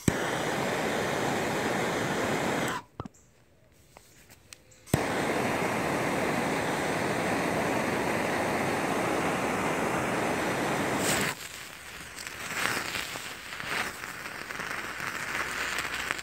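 Handheld gas torch lit with a click and running with a steady hiss, cut off for about two seconds and relit. About eleven seconds in the hiss gives way to irregular crackling and sputtering as the sodium and sulfur ignite and burn violently.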